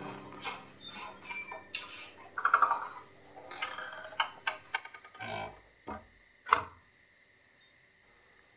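A wooden door being pushed shut and its knob and latch worked, giving a series of knocks and clicks with the loudest knock about two and a half seconds in. A faint steady cricket chirring runs underneath and is left alone near the end.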